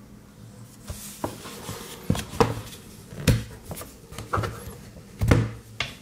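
Plastic extension lead with a USB-C charger plugged into it being handled and set down on a desk: a string of knocks and rubbing, the loudest knocks about two, three and five seconds in, over a faint steady hum.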